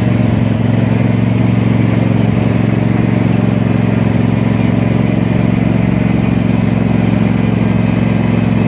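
Riding lawn mower engine running at a steady speed while it tows a weighted pallet drag across gravel.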